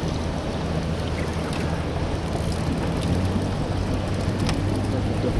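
Small boat's motor running steadily with a low even hum, under a wash of wind and water noise.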